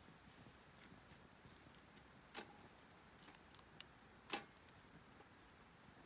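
Near silence with a few scattered sharp clicks, the loudest about four seconds in.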